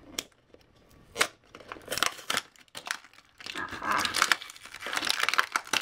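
Clear plastic blister packaging of a toy five-pack being pried open by hand: a few sharp plastic cracks in the first two seconds, then a longer stretch of crinkling and tearing as the plastic is pulled from its cardboard backing.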